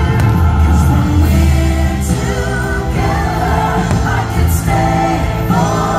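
Fireworks show soundtrack: music with singing voices over a steady bass line.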